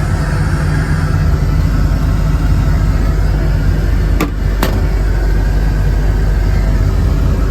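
Steady low engine rumble heard from inside a vehicle, with two sharp clicks about four seconds in.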